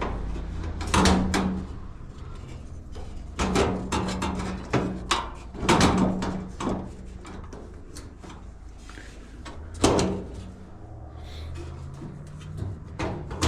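Knocks, clicks and scraping of washing-machine panels and brackets being handled and fitted during reassembly, with a sharper knock about a second in and another near ten seconds.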